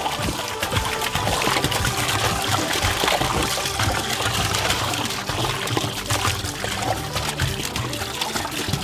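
A steady stream of Coca-Cola pouring into a metal barrel and fizzing as it foams up on Mentos, with background music underneath.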